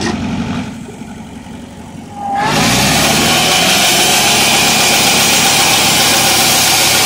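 Mobile band sawmill's engine running at low revs, then rising sharply a little over two seconds in. The band blade then cuts steadily through a western red cedar log, loud and even, over the engine.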